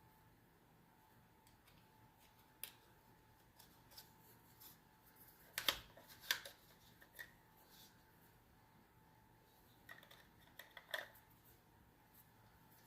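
Faint handling noises from a camera kit lens and its packaging: scattered soft clicks and rustles, loudest about six seconds in and again in a short cluster near eleven seconds, over a faint steady high hum.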